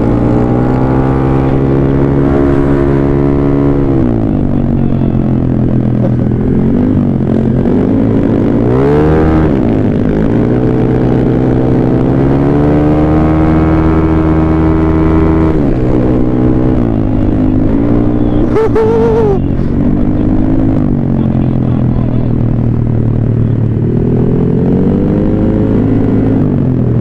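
Honda PCX160 scooter's single-cylinder engine running under way, its pitch falling and climbing several times as the throttle is eased and opened, over wind and road noise.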